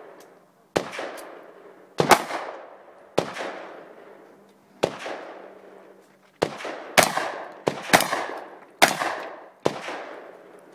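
Shotgun fired about ten times at uneven intervals, some shots in quick pairs. Each shot rings out with an echoing tail of about a second.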